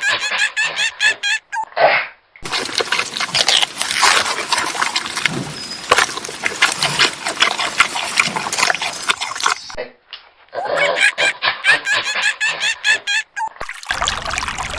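Farm animal calls in short edited clips: rapid, repeated high chirps at the start and again about two-thirds of the way in, with a long stretch of dense, noisy animal sounds in between.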